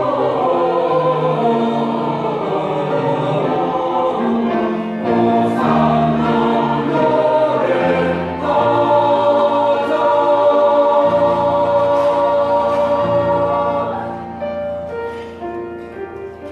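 A church choir singing a Christmas anthem in long held chords that swell and then die away in the closing bars.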